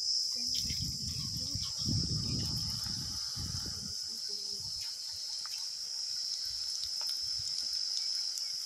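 Steady high chirring of crickets, with pakoras deep-frying in a kadai of oil, sizzling and crackling faintly. Low rumbling noise during the first three and a half seconds.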